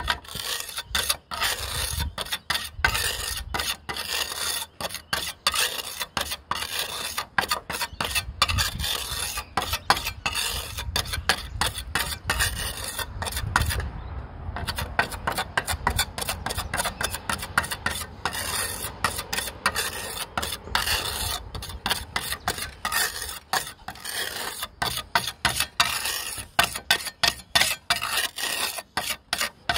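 Steel pointing trowel scraping and smoothing pointing compound along the ridge capping of a tiled roof, in a quick run of short repeated strokes, with a brief pause about fourteen seconds in.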